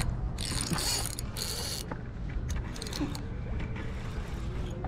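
Spinning fishing reel ratcheting in two dense bursts within the first two seconds, then a few shorter clicks, over a steady low rumble.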